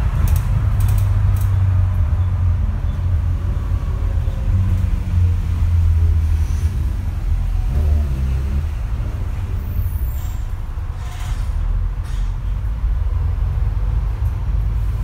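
Bus engine running, a steady low drone heard inside the bus's cabin, with a short hiss about ten seconds in.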